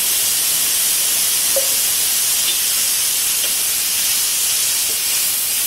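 Tomato puree, ground with green chilli and ginger, sizzling loudly as it hits hot mustard oil and spices in an iron kadhai: a steady hiss while it is stirred.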